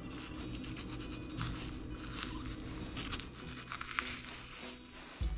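Raw chicken breast being cut and peeled off the breastbone with a knife: soft, irregular wet crackling and tearing with scattered small ticks.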